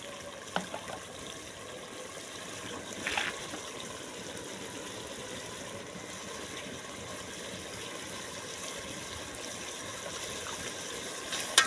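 Arvi and potato curry with added water cooking in an aluminium pot over a wood fire: a steady bubbling sizzle, with a few sharp clicks near the end.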